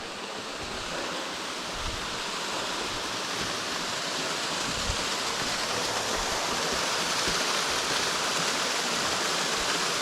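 Creek water rushing over rocky cascades: a steady rushing hiss that grows gradually louder.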